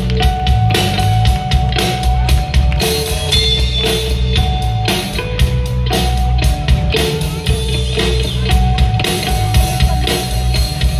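Rock band playing live, with drum kit, electric guitar and bass.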